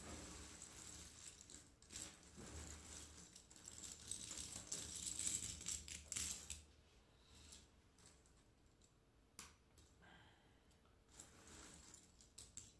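Cardboard jigsaw puzzle pieces being stirred and shuffled by hand on a wooden tabletop: a dense rustling clatter of small clicks that thins after about six and a half seconds to occasional clicks as pieces are picked out of the pile.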